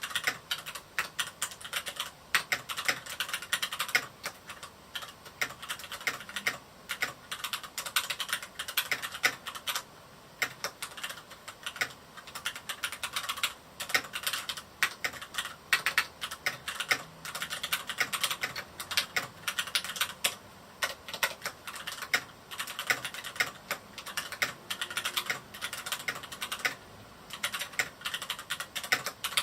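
Typing on a Varmilo Miya68 mechanical keyboard with Cherry MX Red linear switches: a fast, continuous run of key clacks with a few short pauses.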